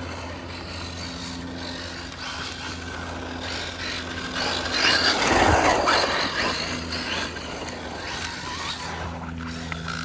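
Brushless electric RC car driving about, its motor and drivetrain running, loudest around five to six seconds in as it comes closest.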